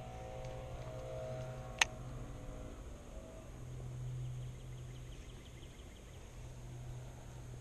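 Quiet outdoor ambience: a steady low hum, with one sharp click about two seconds in.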